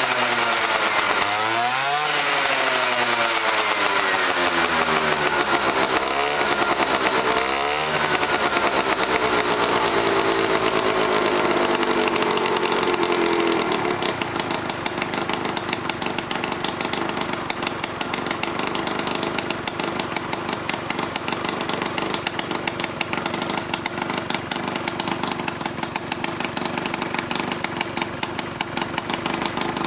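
Yamaha Axis 90 scooter's small two-stroke engine being revved in a few quick blips, then its revs winding slowly down to a steady idle about halfway through. It has an exhaust leak at the exhaust pipe joint from one broken exhaust pipe bolt, but is otherwise running well.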